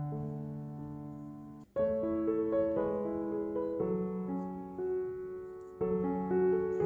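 Background piano music: held chords and single notes that fade, with a momentary break about a second and a half in.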